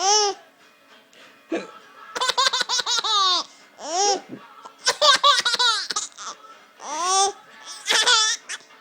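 Baby laughing hard: high arched squeals and quick runs of giggles, set off by a woman's hiccups, one of which comes short and abrupt about one and a half seconds in.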